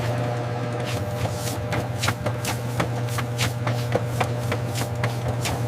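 Popcorn-processing machine running with a steady low hum, with many irregular sharp clicks and rattles of popcorn against the machinery.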